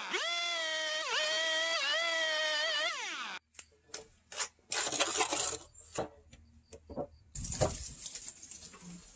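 Stihl two-stroke chainsaw running at high revs and cutting through a wooden board, its pitch dipping and recovering about four times as the chain bogs in the wood; it cuts off abruptly a little over three seconds in. After that come scattered light knocks and a scraping rub as timber boards are handled and set in place.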